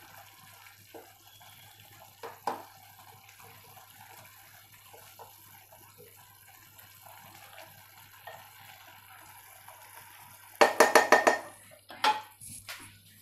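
Wooden spatula gently stirring wet mushroom and coconut bhaji in a cooking pot: faint squelching and scraping with a light knock or two. About ten seconds in comes a louder burst of noise lasting about a second, followed by a couple of shorter ones.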